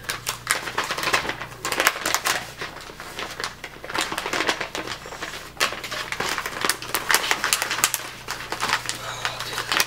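Plastic bait packaging crinkling and crackling as it is handled, a dense run of small clicks with a few brief pauses.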